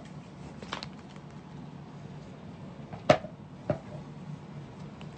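Gift box and cloth dust bag being handled: a few light clicks, then two sharp knocks about half a second apart near the middle, the first the louder, over a steady low hum.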